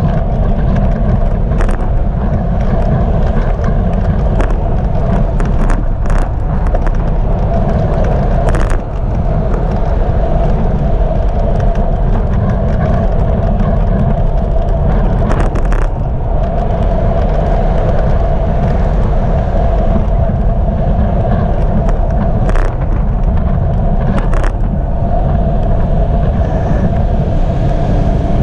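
Steady loud rumble of wind and road noise on a bicycle-mounted GoPro riding along a city road in car traffic, with scattered short clicks and knocks.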